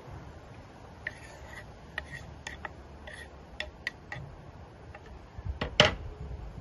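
Knife blade scraping chopped herbs off a wooden cutting board into a glass bowl, in short scrapes and light taps. Near the end the wooden board knocks down once, loudly, onto a glass tabletop.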